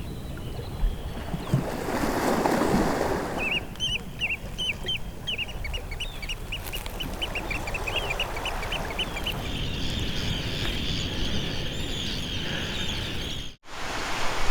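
Small shorebirds calling: a quick run of short, sharp high notes, about three a second, that runs into a continuous chatter, over a steady wash of surf and wind.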